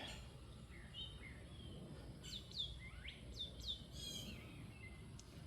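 Faint bird chirps: a few short calls that sweep down in pitch, clustered about two to four seconds in, over low background noise.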